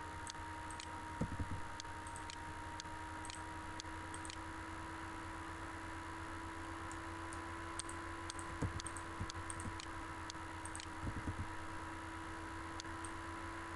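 Scattered computer mouse clicks with a few duller knocks, over a steady electrical hum and hiss.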